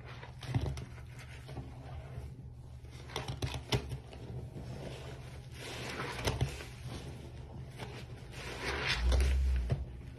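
Soapy sponge squelching and foam crackling as it is squeezed and rubbed through thick detergent lather, with several sharper squishes and a louder wet squeeze near the end, over a steady low hum.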